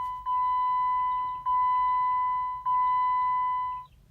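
Car's electronic warning chime sounding with the ignition switched on: a steady high beep that restarts about every second and a quarter, four times, then stops shortly before the end.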